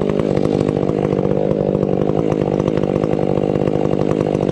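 Stihl 500i two-stroke chainsaw idling steadily between cuts, its engine note even and unchanging.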